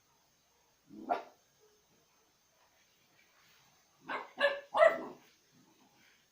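A dog barking: one bark about a second in, then three quick barks in a row a few seconds later.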